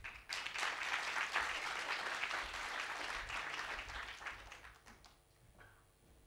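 Audience applauding a speaker off stage, a dense patter of clapping that fades out after about four and a half seconds.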